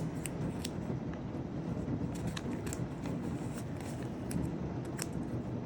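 Masking tape and paper being handled and pressed onto a journal page: scattered small ticks and rustles over a steady hiss.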